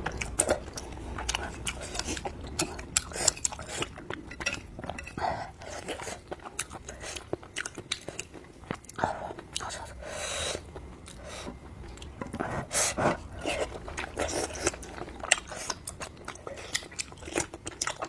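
A person chewing and biting food close to the microphone: a dense, irregular run of wet clicks and smacks.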